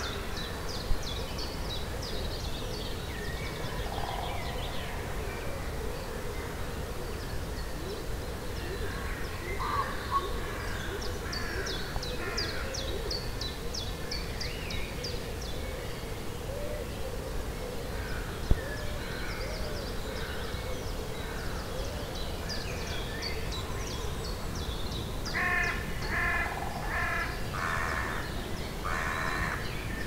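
Spring woodland birdsong: several songbirds singing overlapping phrases and fast trills. Near the end, a crow gives about five loud, harsh caws. There are a few brief knocks, and a low steady rumble runs underneath.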